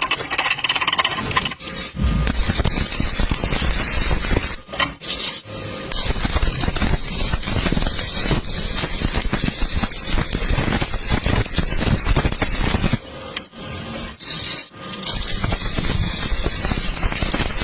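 Electric arc welding crackling steadily as a bead is run to fill a V-groove butt joint, the arc breaking off briefly about five seconds in and again for a moment around the thirteen-to-fifteen-second mark.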